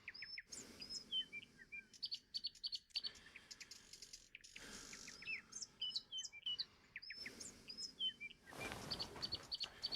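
Several small birds chirping and twittering in quick, short calls over a faint steady hiss, like a morning birdsong ambience track. The background changes abruptly a few times, as if the recording is spliced or looped.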